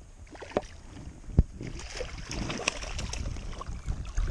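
Water splashing and churning around a hooked fish being reeled in to a wading angler, growing louder toward the end, after two sharp knocks. Wind buffets the microphone.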